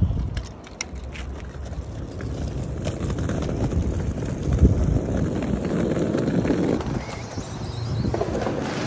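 Small wheels of a rolling suitcase rumbling steadily over asphalt, with a single knock about halfway. The rumble eases off near the end.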